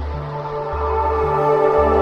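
Ambient background music: sustained chords over a slow bass line that changes note about once a second.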